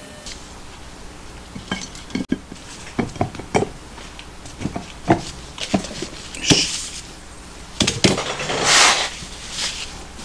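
Aluminium crankcase halves of a home-built four-cylinder engine clinking and knocking as the upper half is set onto the lower half over the crankshaft. A series of short metallic knocks starts about two seconds in, with two scraping slides of metal on metal, the longer one near the end.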